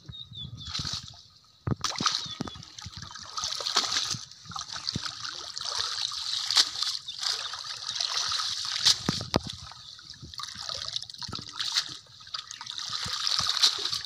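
Pond water splashing and sloshing as a cast net is hauled in by hand, with water trickling and dribbling off the net; it starts abruptly about two seconds in and continues with many small splashes.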